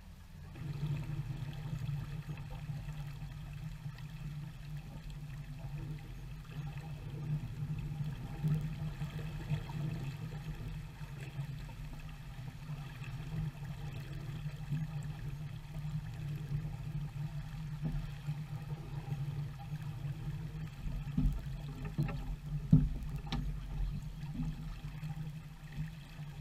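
Steady rush of water and wind as a J-35 sailboat moves along under sail, with a few sharp knocks about four-fifths of the way through.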